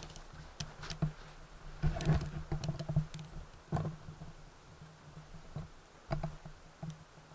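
Small wood fire crackling in the BioLite Basecamp stove's firebox: irregular sharp pops and crackles over a low steady hum, with a busier cluster about two seconds in.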